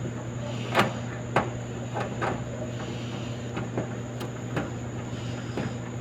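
Clothes dryer running: a steady low hum with irregular knocks and clicks, the loudest about a second in.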